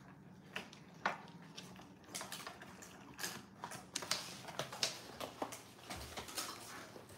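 A dog gnawing a hard chew: irregular crunching and cracking clicks, sparse at first and coming thick and fast from about two seconds in.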